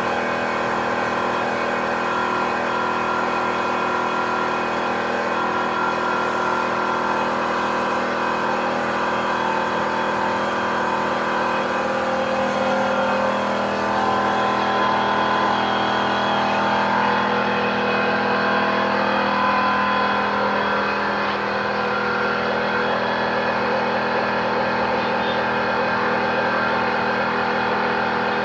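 Air compressor motor running steadily with a hum, some of its tones drifting slowly lower in pitch about halfway through.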